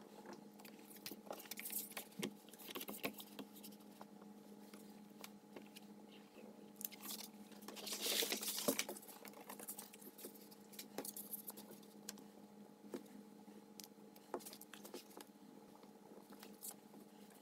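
Pen scratching as it traces around cardstock pattern pieces on leather, with small clicks and rustles as the card templates and the leather are shifted on the cutting mat. A louder rustle comes about halfway through.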